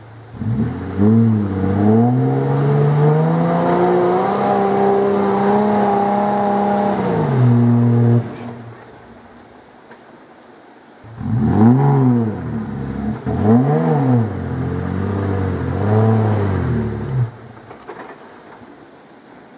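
Toyota Landcruiser 80 series engine revving under load on a steep clay hill climb. The revs rise and are held high for several seconds, then drop away; after a lull comes a run of short rev blips that rise and fall, then it settles.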